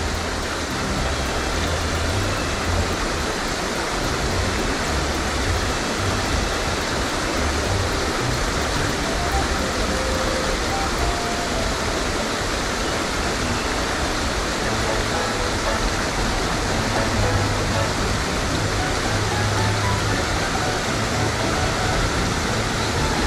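Steady outdoor rushing noise with irregular low rumbles underneath.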